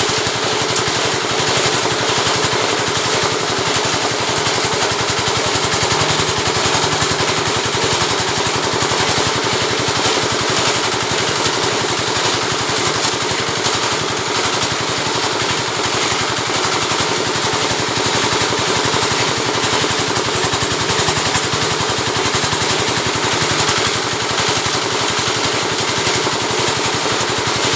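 An oil-palm frond rib (lidi) stripping machine running steadily with a loud, rapid, continuous clatter.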